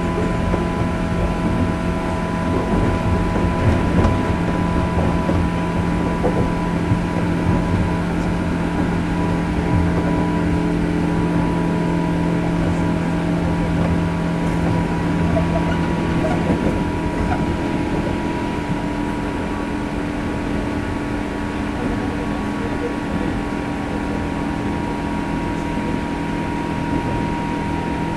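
Onboard running sound in a JR Kyushu 103 series 1500 subseries electric train's motor car: steady rumble of wheels on the track with several steady humming tones from the motors, at a fairly even speed. Partway through, the hum shifts slightly and the noise eases a little.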